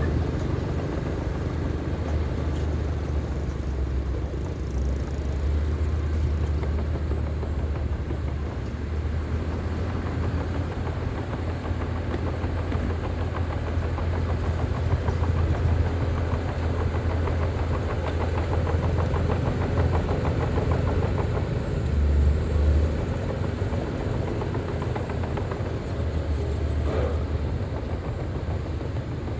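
Diesel engine of heavy earthmoving equipment running steadily with a deep, low drone.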